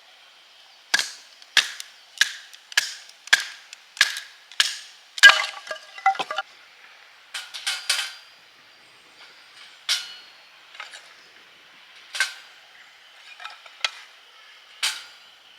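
Sharp repeated strikes, each with a short ring, at a steady pace of nearly two a second for about four seconds, then a brief clatter and a few scattered single strikes.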